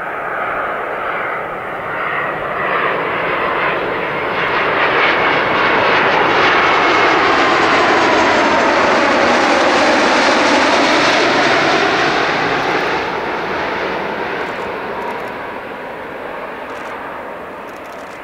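Airbus A330-200 twin-engine jetliner on landing approach passing low overhead: the jet engine noise builds, peaks as the aircraft goes over, then drops in pitch and fades as it moves away.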